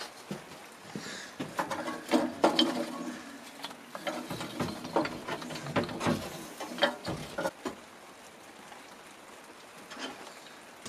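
Kindling clattering and knocking against the steel firebox and grate of a small wood-burning stove as it is loaded. Irregular clicks, knocks and some metallic scraping come in two busy spells, then die down after about seven seconds.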